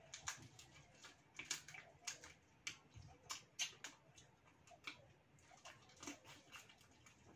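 Eating sounds: irregular sharp crackles and clicks of fried mantis shrimp shells being cracked by hand and chewed.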